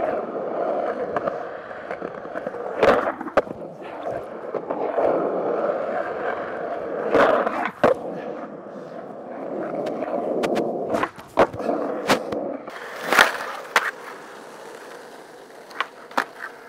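Skateboard wheels rolling on asphalt, broken by about a dozen sharp clacks of the board popping, landing and striking a concrete curb. The rolling stops about three-quarters of the way through, leaving a few lighter clacks.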